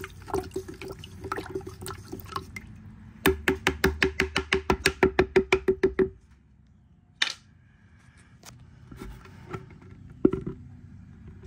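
Flat wooden stirring stick knocking and scraping against the sides of a plastic jar while stirring a liquid fertilizer mix: uneven taps at first, then a quick steady run of about seven knocks a second for a few seconds, then a few scattered taps.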